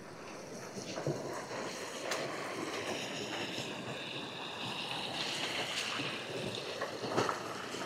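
Shallow mountain stream running over rocks, with occasional footsteps on a stony gravel path.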